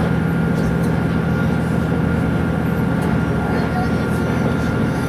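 Tsugaru 21 diesel railcar running at speed, heard from inside the cabin: a steady low drone of engine and running gear, with a thin steady whine above it.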